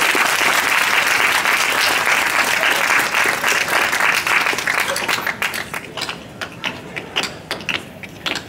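Audience applauding, loud and dense at first, dying down to scattered separate claps after about five seconds.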